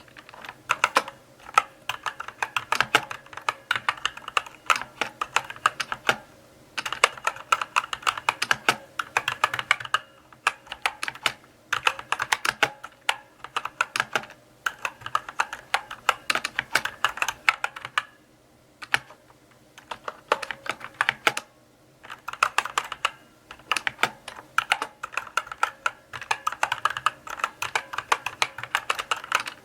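Mechanical keyboard being typed on: runs of sharp key clicks broken by short pauses, the longest pause about two-thirds of the way through.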